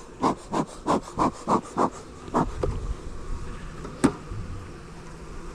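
Honey bees buzzing around an open hive, with a rhythmic scraping or rubbing of about three strokes a second over the first two seconds and a single sharp knock about four seconds in.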